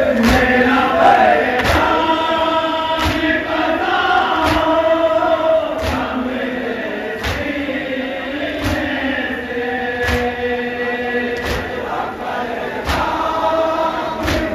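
A group of male mourners chanting a noha (Shia lament) together in long held lines, with rhythmic chest-beating (matam) in unison, about one beat every second and a half.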